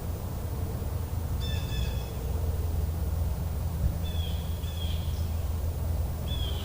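Bird calls: four short, slightly falling calls, one about a second and a half in, two close together around four to five seconds in, and one near the end, over a steady low rumble.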